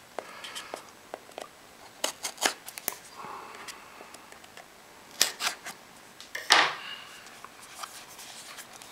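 A small cardboard box being cut and opened with a hand tool: scattered sharp clicks, snips and cardboard rustles, in small clusters, the loudest about two-thirds of the way through.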